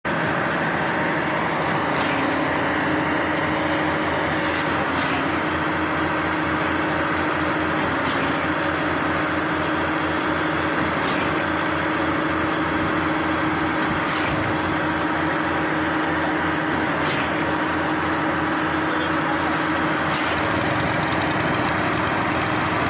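An engine running steadily at a constant speed, with faint sharp clicks every few seconds.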